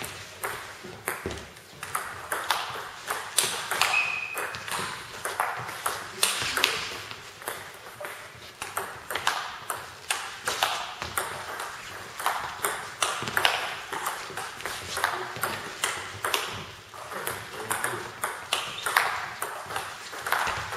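Table tennis rally: the celluloid ball clicking off the bats, one faced with Nittaku Monophonic pimpled rubber, and off the table, a couple of sharp clicks a second without a break. A short squeak about four seconds in.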